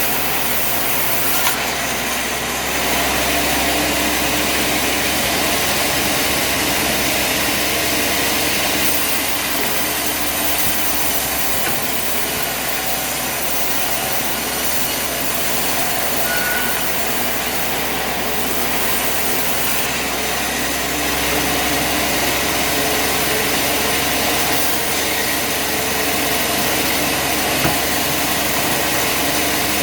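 A bandsaw sawmill running steadily, its engine and blade making a loud, even machine noise with no pauses, as when it cuts through a log.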